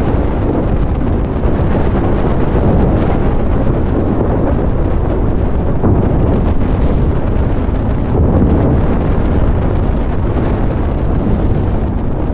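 Large fire burning with a steady, dense low rumble.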